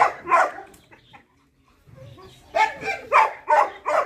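A dog barking in quick runs of about three barks a second, breaking off about a second in and starting again after a pause of over a second.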